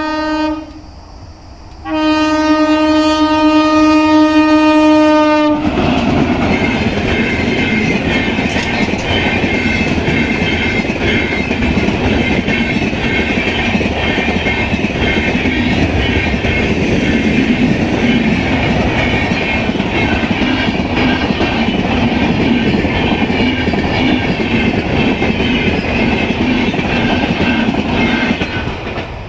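Locomotive horn of the Sadbhavana Express: a short blast that stops under a second in, then a long blast of about four seconds. The train then passes close by, a loud continuous rush of coaches and wheels on the rails for over twenty seconds, fading near the end.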